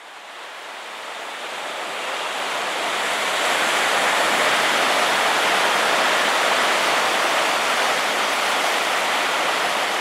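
Small waves breaking and washing up a sandy beach: a steady rush of surf that fades in over the first few seconds.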